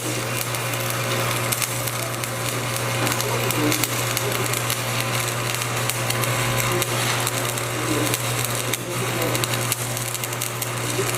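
Shielded metal arc (stick) welding arc crackling steadily, laying a second pass on a 10 mm fillet weld in the flat position, over a steady low hum.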